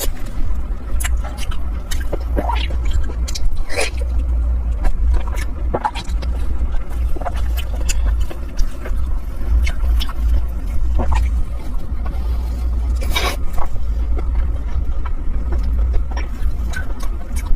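Close-miked eating sounds, scattered clicks and a few short slurps, over a steady low rumble.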